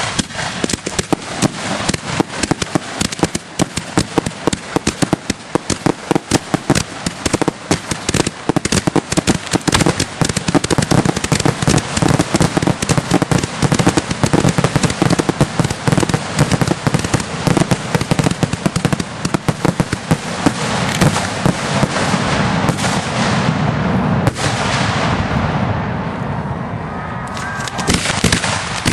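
Aerial firework shells bursting in a rapid, near-continuous barrage: dozens of overlapping bangs and crackles. From about two-thirds of the way through, the bursts run together into a denser rumble for a few seconds before the separate cracks return.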